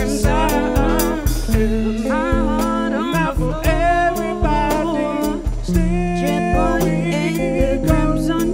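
Live blues-soul band: a woman sings the lead melody while a man sings along, over guitar and a steady drum beat.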